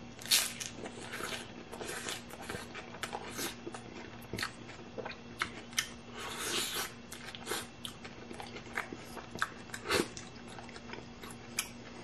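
Close-up eating of a crunchy hard-shell ground beef taco: a loud bite of the shell cracking just after the start, then chewing full of crisp crackles, and a second long crunchy bite about six and a half seconds in.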